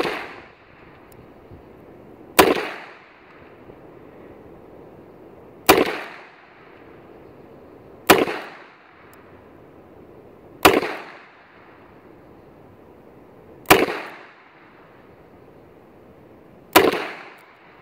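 Six double-action shots from a Taurus 992 revolver firing .22 Winchester Magnum rounds, each a sharp crack with a short ringing tail, spaced about two and a half to three seconds apart.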